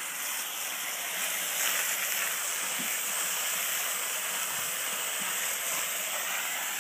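Steady hiss of water spraying from a hose-end foam sprayer, lathering a horse's coat with soap.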